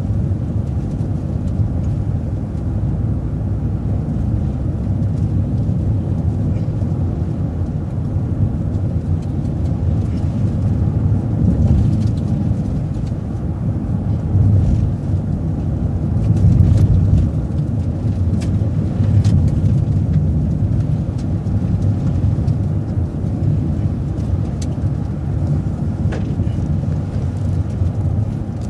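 Steady low road and engine rumble heard from inside a moving vehicle, swelling and easing a little as it drives, with a few light clicks and rattles.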